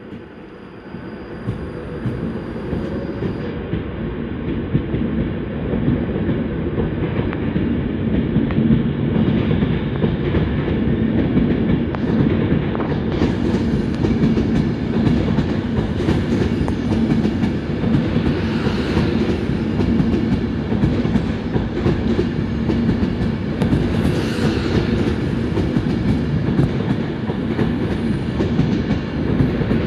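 Avanti West Coast Class 390 Pendolino electric train passing close by at the platform: the running noise of its wheels on the rails grows louder over the first several seconds, then holds steady as the carriages go past. A thin high tone is heard for the first few seconds.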